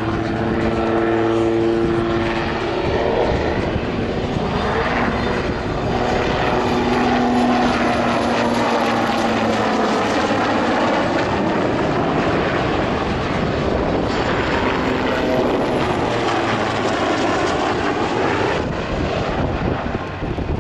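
AS532 Super Puma helicopter's twin turbines and main rotor running loud and steady through a display manoeuvre. There is a rushing, phasing sweep as it passes low and close, near the middle.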